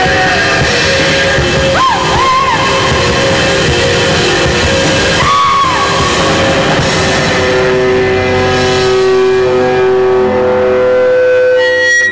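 Live rock band playing loud: electric guitar, bass guitar and drums, with two short gliding notes in the first half. From about eight seconds in, long held notes ring over the band as the song winds down, turning choppy near the end.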